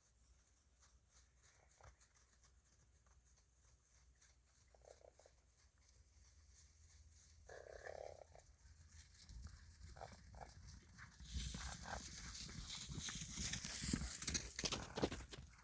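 Horses galloping, their hoofbeats building to a loud, dense drumming in the last few seconds. Before that, two short animal calls come a few seconds apart.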